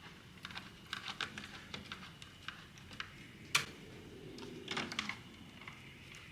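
Scattered light clicks and taps at an irregular pace, with one sharper click about three and a half seconds in.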